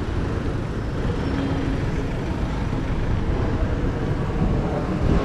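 Steady wind and traffic noise heard while riding a bicycle along a city street, with no distinct events.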